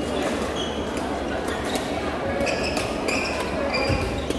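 Busy sports hall with several badminton matches going at once: scattered sharp racket-on-shuttlecock hits and many short sneaker squeaks on the court floor over a steady murmur of voices.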